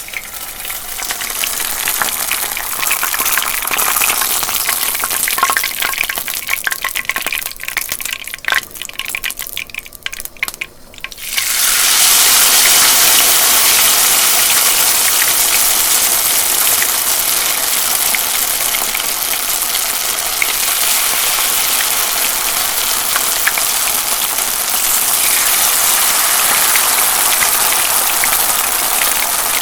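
Tempura frying in hot oil: crackling with many sharp pops for about the first ten seconds, thinning out, then about eleven seconds in a sudden loud, dense sizzle that keeps going steadily.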